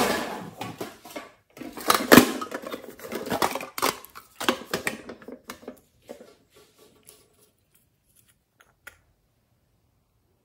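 Small glass nail polish bottles and their caps being handled: a close run of clicks, rattles and scrapes for about six seconds, then a few faint taps.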